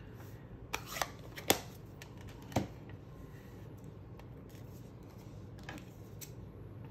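A few sharp clicks and taps from paper and small crafting tools being handled on the desk: four distinct ones in the first three seconds, then a couple of fainter ones.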